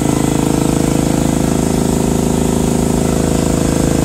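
Ingersoll Rand 2340L5-V two-stage electric air compressor running steadily under load, with a fast, even pulsing beat from the pump, as it charges its tank toward the 150 psi cutoff.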